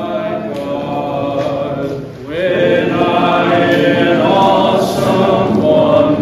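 Hymn singing: a man's voice at the pulpit microphone together with a group of voices, holding long sung notes, with a new phrase starting on a rising note a little over two seconds in.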